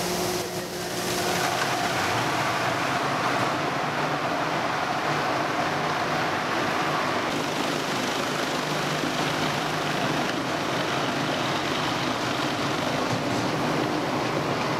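Industrial bowl cutter running, its rotating bowl and blades chopping chunks of fish paste for fish cake: a steady machine noise.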